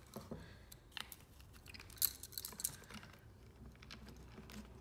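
Faint, scattered clicks and taps of plastic being handled: a facial-cleanser brush head being taken out of the machine and its packaging.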